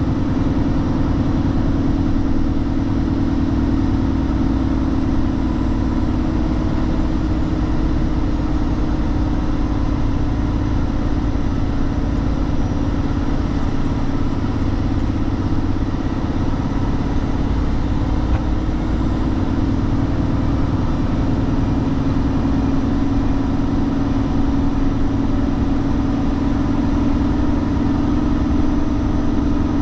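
Truck engine running steadily, its hum dipping slightly in pitch about halfway through and then returning.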